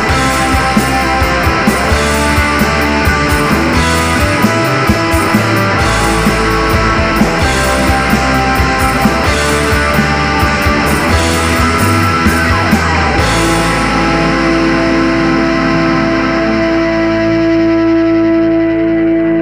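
Rock band playing, guitars over bass and drums. About two-thirds of the way through the drums stop and a held guitar chord rings on.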